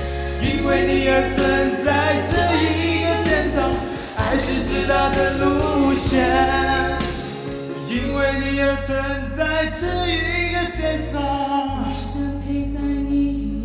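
A woman singing a pop ballad into a microphone over a backing track with a steady bass line.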